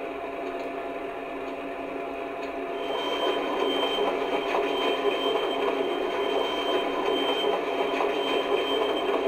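Simulated diesel locomotive engine running steadily, played by a Phoenix P5 sound board through the speaker of a stationary LGB Genesis model locomotive. It grows a little louder about three seconds in, with a thin high whine joining it.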